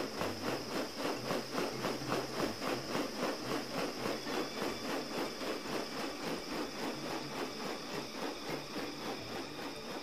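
Insects calling: a steady high whine over a fast, even pulsing of about five beats a second.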